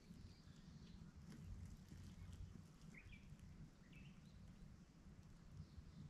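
Near silence: faint outdoor ambience with a low rumble and a few faint bird chirps about three and four seconds in.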